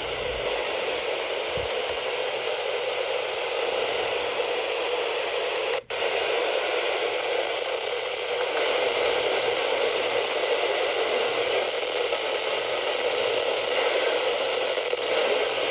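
Steady hiss of static from a received NOAA Weather Radio signal on a narrowband FM receiver, with a brief dropout about six seconds in.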